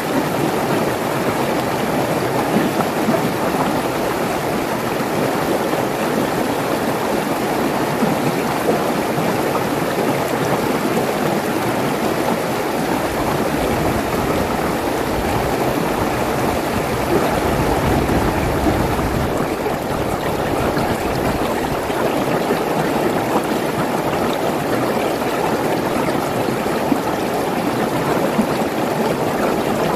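Mountain stream rushing and splashing over a low rock ledge: a steady, unbroken rush of water.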